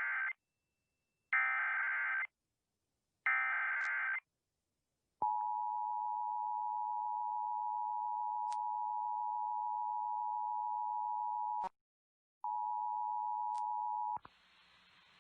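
Emergency Alert System signal: three one-second bursts of SAME digital header data, each about a second apart. Then the steady two-tone EAS attention signal holds for about six seconds, breaks off briefly, and sounds again for about two seconds before giving way to faint hiss.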